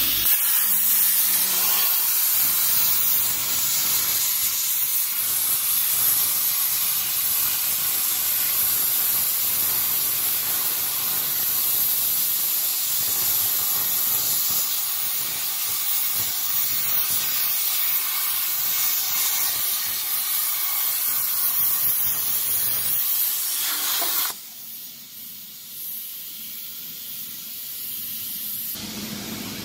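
Plasma cutting torch on a CNC gantry machine with a 200 A plasma source, cutting steel flat bar: a loud, steady hiss. It cuts off sharply about 24 seconds in, leaving a much quieter hiss.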